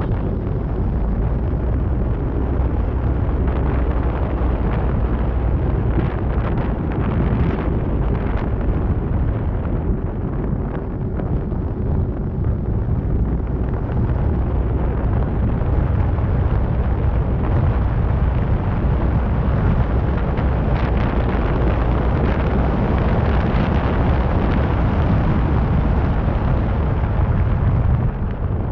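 Wind and road noise of a moving car picked up by a camera microphone on its bonnet: a loud, steady, low rumble with brief gusts hitting the microphone.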